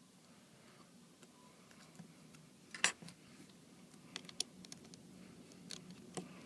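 Small hand tools clicking and tapping against an opened iPad 2 while it is taken apart: a few scattered sharp clicks, the loudest about three seconds in and a quick cluster a second or so later, over a low steady hum.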